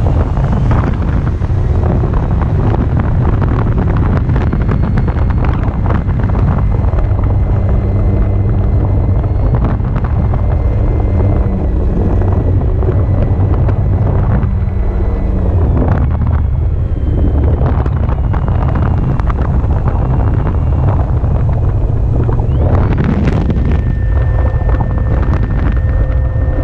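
Wind buffeting the microphone, under the thin whine of a Carbon-Z Cessna 150 radio-controlled model plane's electric motor. The whine steps up and down in pitch and rises sharply about three-quarters of the way through.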